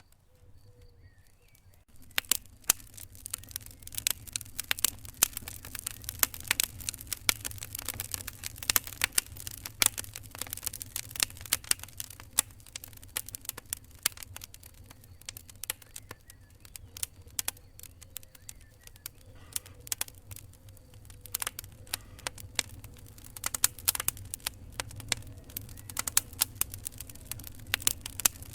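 Fire crackling: a dense run of sharp, irregular pops and snaps over a low steady rumble. It starts about two seconds in, after a near-quiet moment.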